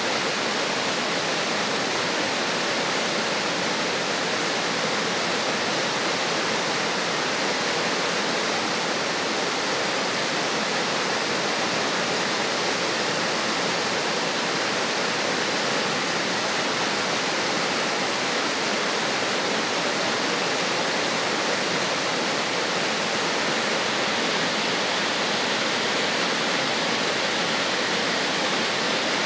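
Spring-fed river water rushing and cascading over boulders in small rapids, a steady, even rush with no breaks.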